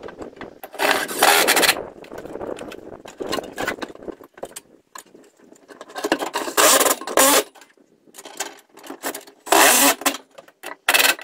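Metal parts scraping and rattling in several short, loud bursts as hands work in the metal wiring compartment at the base of a solar charge controller.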